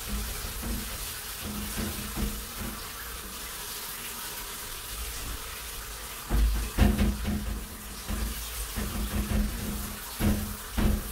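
Shower water running in a tiled shower cubicle, a steady hiss of spray, with a few dull low knocks about six to seven seconds in and again near the end.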